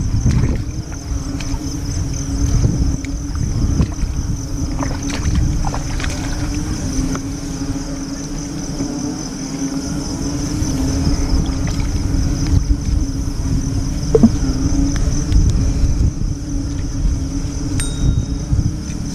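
Steady high-pitched trilling of night insects and a steady low drone, under heavy rumbling, rustling and knocks from someone wading and grabbing a frog out of wet grass close to the microphone.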